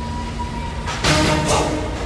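Dramatic film score: a quiet held tone, then a sudden loud hit about a second in and a second one half a second later, over the low rumble of a moving train.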